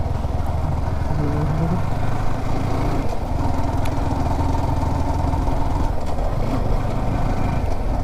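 Yamaha R15 V4's single-cylinder 155 cc engine running steadily, picked up by the rider's helmet-mounted mic.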